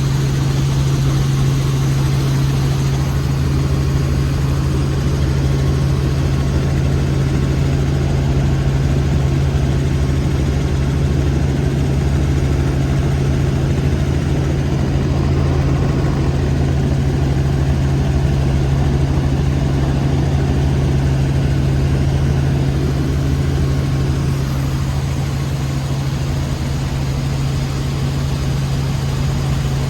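Helicopter running in flight: a loud, steady drone of engine and rotors with a strong low hum that holds unchanged throughout.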